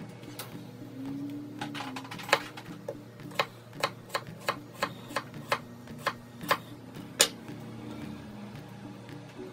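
Chef's knife slicing red potatoes, each cut knocking on a wooden cutting board: about a dozen sharp knocks, roughly two a second, starting a couple of seconds in.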